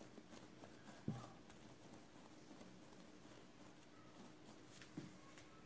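Near silence, with a soft thump about a second in and a fainter one near the end as a log of dough is rolled and pressed on a wooden board.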